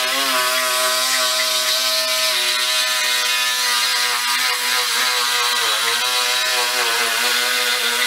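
Corded reciprocating saw running steadily as it cuts through a walk-in refrigerator wall panel, a continuous motor whine whose pitch wavers slightly under load.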